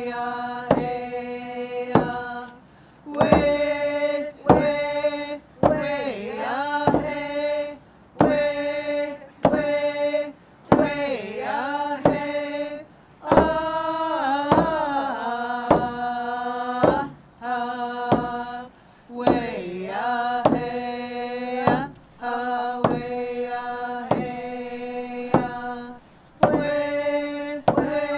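Traditional Tlingit song: several voices singing and chanting together, the notes held and at times sliding down and back up, over a steady beat on hide frame drums.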